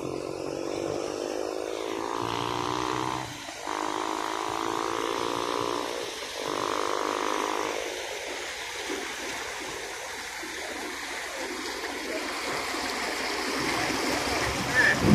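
Frogs calling in a steady droning chorus, in long stretches with short breaks, fading out about halfway. Near the end, flood water swishes louder as a pickup truck wades through it close by.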